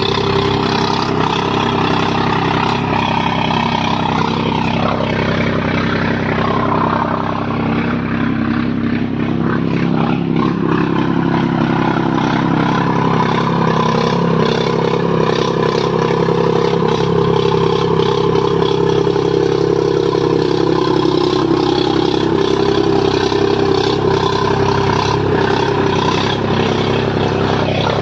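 Sonalika DI 734 tractor's three-cylinder diesel engine running steadily and very loud, with a few brief shifts in pitch in the first half.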